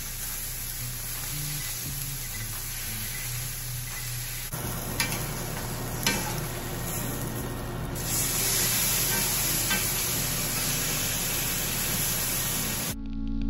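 Steak sizzling in a hot cast iron skillet, a steady frying hiss that grows louder about halfway through, with two sharp clicks about five and six seconds in. Guitar music starts suddenly near the end.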